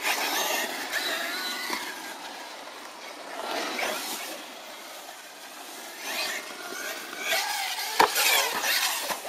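Radio-controlled off-road truck driving on dirt, its motor whining up and down in pitch as it speeds up and slows, with tyre and gravel noise; a sharp knock about eight seconds in as it hits the ground.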